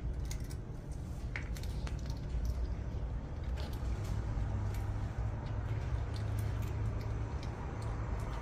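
Cats eating, with scattered small clicks and crunches of chewing dry cat food and fish, over a steady low hum.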